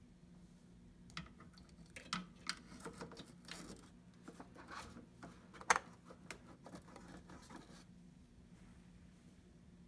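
Hands fitting a snow shield over an RC snowmobile's electronics: scattered light clicks, scrapes and rustles, with one sharper click a little past halfway.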